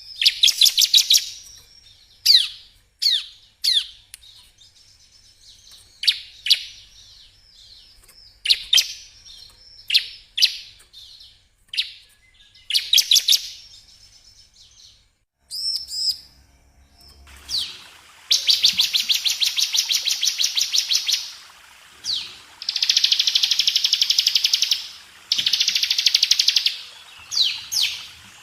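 Ciblek (bar-winged prinia) song: sharp, quickly falling chirps and whistles at first, then from a little past halfway long, tight, rapid buzzing trills of two to three seconds each, broken by short chirps.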